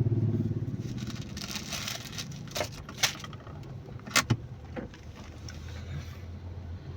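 Car running with a low hum heard from inside the cabin, with a few sharp clicks in the middle.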